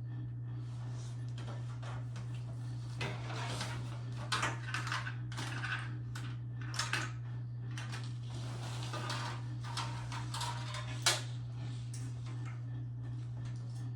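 Hands handling a new prebuilt desktop PC: scattered rustling, clicks and light knocks, the sharpest click about eleven seconds in, over a steady low hum.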